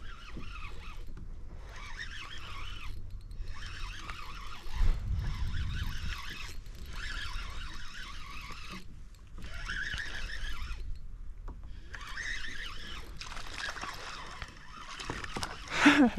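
Kayak paddle strokes in the water, a splashing rush about every second and a half with short gaps between, and a low knock about five seconds in. Near the end comes a loud sweep that falls quickly in pitch.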